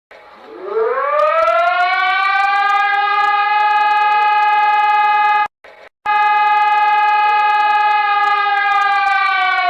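Emergency alert siren rising in pitch over the first second, then holding one steady wailing tone. It breaks off for about half a second midway and resumes at the same pitch, then begins to fall in pitch near the end.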